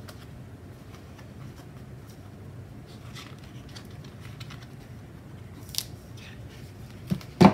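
Pages of a Create 365 paper sticker book being leafed through and handled, paper rustling with scattered crackles and a few sharp, louder paper snaps near the end.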